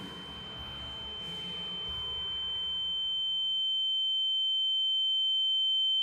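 A steady, high-pitched ringing tone like ringing in the ears, swelling louder while the background murmur of the café fades out over the first three seconds, with a fainter lower tone joining partway through. It is a film sound effect for a character's shock.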